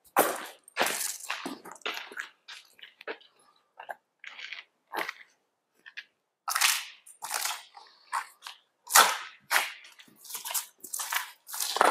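Footsteps crunching over rubble and debris: an irregular run of sharp crunches, each step a short gritty crunch.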